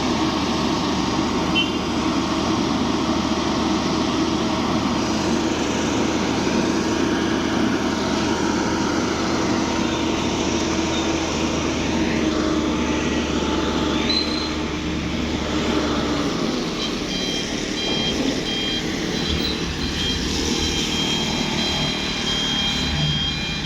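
Heavy road traffic: the engines of large vehicles such as buses and trucks running as they pass on an uphill bend, with a low drone that stops about two-thirds of the way through. Near the end, a faint high beeping that keeps breaking on and off.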